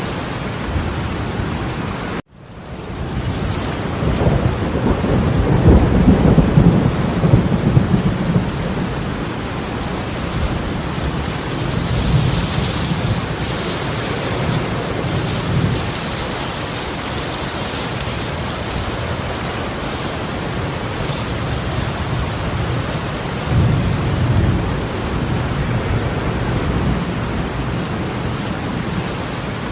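Heavy torrential rain pouring steadily, with low thunder rumbling up loudest from about four to nine seconds in and again briefly near the end. The sound cuts out for an instant about two seconds in and fades back.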